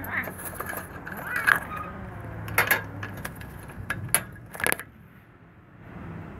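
Cat eating from a ceramic bowl, with chewing and several sharp clicks against the bowl, the loudest around the middle and shortly after.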